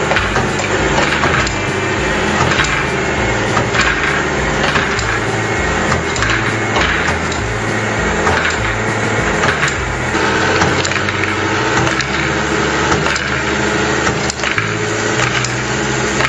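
Plastic balls clattering and clacking along the rails and through the launcher and lift of a building-block marble run, in a dense, continuous rattle of small knocks.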